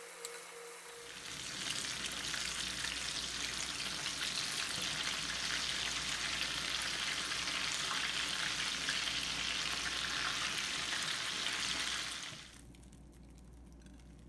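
Breaded jalapeño poppers deep-frying in hot oil in a cast-iron skillet: a dense, crackling sizzle that swells in about a second in and cuts off about twelve seconds in.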